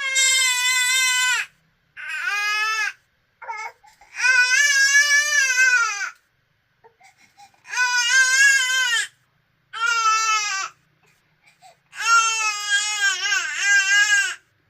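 A young child crying loudly in a string of about six high-pitched wails. Each wail lasts one to two seconds and rises then falls in pitch, with short breaths between them.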